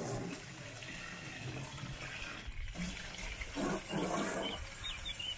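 Jet of water from a garden hose splashing into a plastic pond-filter tank, rinsing out the dirt. It breaks off briefly about halfway through.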